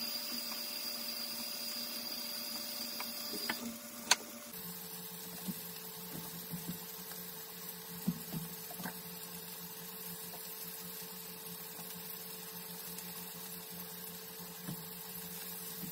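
Steady hum of a small electric motor, with a click about four seconds in after which the hum drops slightly in pitch and carries on. A few light knocks as potatoes and carrots are handled on a wooden cutting board.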